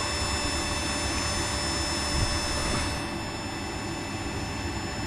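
Electric drill sharpening machine running with a steady high whine while a center drill is ground against its wheel in the sharpening port; the sound eases a little about three seconds in.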